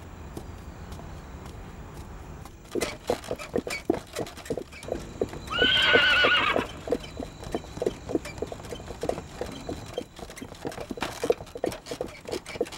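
Horse hooves clopping on hard ground, starting about three seconds in and carrying on as a quick, uneven stream of knocks. A horse neighs once in the middle, the loudest sound.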